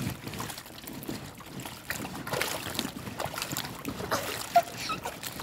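Pool water splashing and sloshing in uneven surges as a child kicks along in a swim ring, pushing a foam kickboard through the water.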